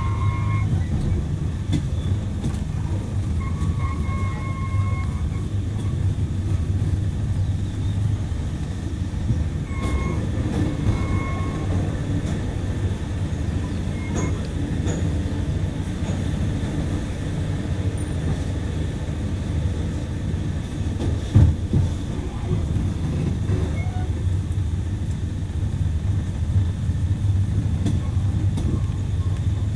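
Passenger train running along the track: a steady low rumble with a few brief high tones early on and around ten seconds in, and one sharp knock about two-thirds of the way through.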